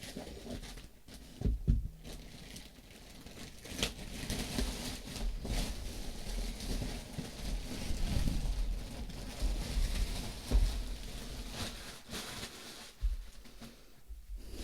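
Plastic parcel packaging rustling and crinkling as it is handled and opened, with a few low thumps near the start and a sharp click about four seconds in.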